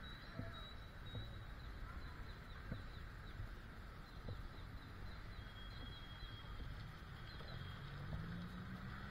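Outdoor ambience of birds chirping: quick, high, repeated chirps and a few held whistled notes, over a low rumble of distant traffic. A low engine hum rises in pitch near the end.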